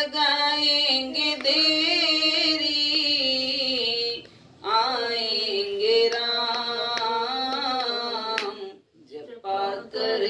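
A woman singing a Hindi devotional bhajan in long, drawn-out notes with a wavering pitch, pausing briefly for breath about four seconds in and again near the end.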